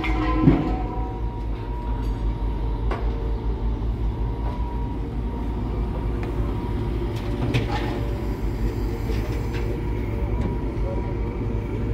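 Diesel engines of a wheeled excavator and a dump truck running, a steady low rumble. It is broken by a few metallic knocks and thuds as the excavator's bucket loads sand and rubble into the truck bed, the loudest a ringing clank about half a second in.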